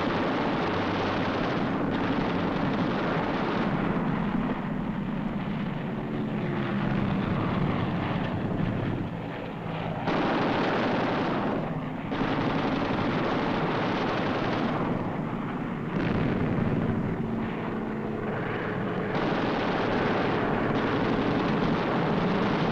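Rapid aircraft machine-gun fire over the steady drone of aircraft engines, the firing shifting and breaking off every few seconds.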